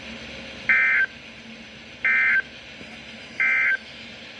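Emergency Alert System end-of-message (EOM) signal: three short bursts of two-tone digital SAME data, each about a third of a second long and a little over a second apart, marking the end of the weather radio test message.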